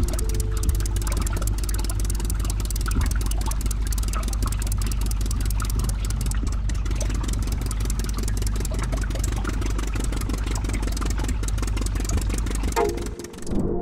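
A motor running steadily, with a low hum and rapid clicking.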